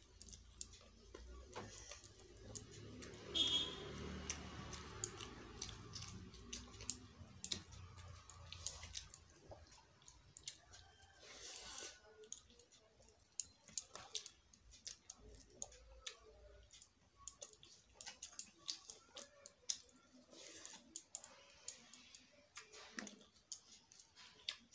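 A person eating with her hand: chewing and many small wet mouth clicks and smacks, with fingers squishing and mixing rice and dal on a plate. A low rumble and one louder noise come about three to four seconds in.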